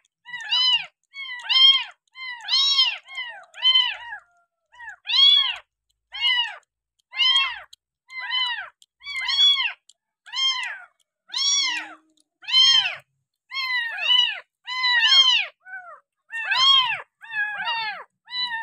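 Very young kitten mewing over and over, about two short, high cries a second, each rising and falling in pitch, with a brief pause about four seconds in. These are a hungry, impatient kitten's cries during bottle-feeding.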